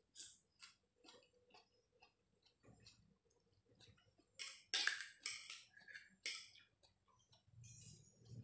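Eating sounds: chewing with short clicks and taps of a spoon and fork on a metal tray, a few louder ones about halfway through.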